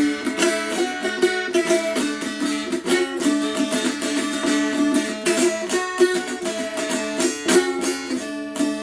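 Restored Appalachian lap dulcimer being strummed, tuned to D: a melody played over steady drone notes, in a quick, even rhythm of strokes.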